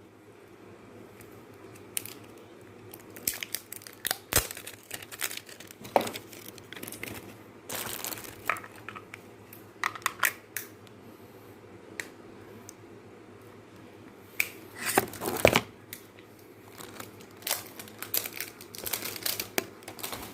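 Plastic packaging crinkling and rustling as a walkie-talkie's battery and parts are unwrapped and handled, with irregular clicks and taps, loudest about fifteen seconds in.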